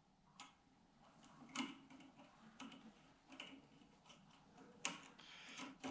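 A handful of faint, irregular clicks and light scrapes of a thin oil-control ring rail being worked around the bottom ring groove of an aluminium piston held in a vise.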